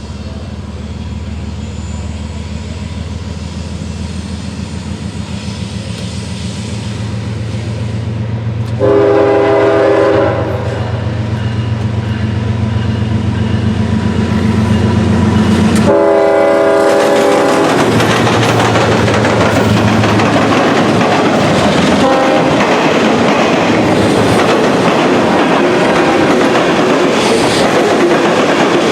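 Norfolk Southern diesel freight locomotives approaching with their engines drumming and growing louder, sounding the horn twice, about nine and sixteen seconds in. From about eighteen seconds the train passes close, with the steady clatter of freight cars rolling over the rails.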